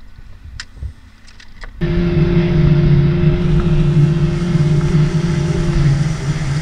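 A few faint knocks, then about two seconds in a boat motor starts up loud and runs steadily with a low, even drone.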